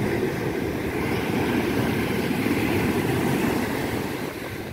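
Sea surf washing up a sandy beach: a steady low rushing that swells about two to three seconds in and eases near the end.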